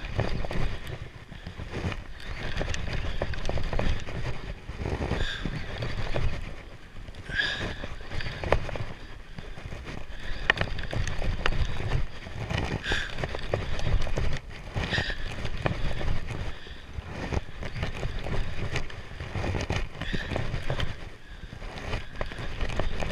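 Wind buffeting the microphone while a Shimano Ocea Jigger conventional reel is cranked against a hooked fish. Short high squeaks come every couple of seconds.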